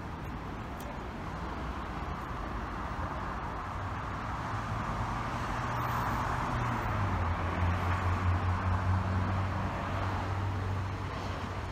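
Road traffic: a motor vehicle's engine hum and tyre noise swelling up over several seconds, with the engine note dropping slightly in pitch partway through, then easing off.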